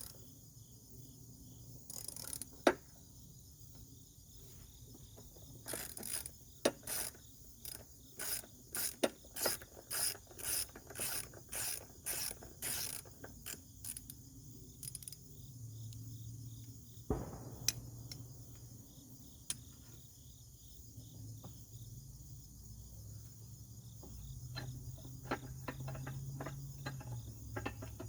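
Socket ratchet clicking as it is swung back and forth on a 15 mm socket, loosening a lawn mower blade bolt: a sharp click a few seconds in, then a steady run of pawl clicks about two a second, with more scattered clicks near the end.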